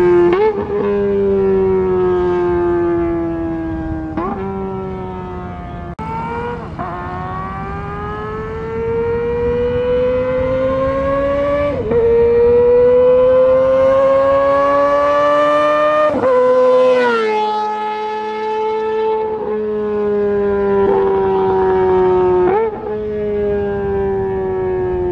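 Kawasaki ZX25R's 250 cc inline-four running at high revs through an Austin Racing GP1RR aftermarket exhaust: the pitch climbs steadily in each gear and drops sharply at each upshift, every four to five seconds. About two-thirds through, the pitch slides down further before the engine settles into a steady high drone.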